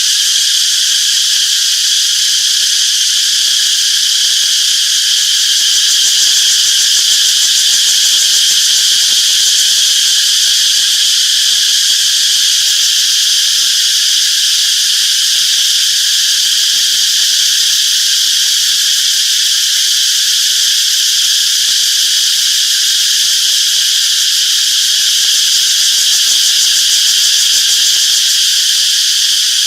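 Chorus of cicadas chirping: a loud, steady, high-pitched buzz that does not let up.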